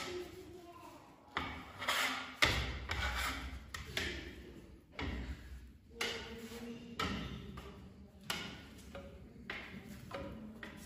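Trowel spreading decorative velvet plaster over a fireplace surface: a series of scraping strokes, roughly one a second, each starting sharply and fading out.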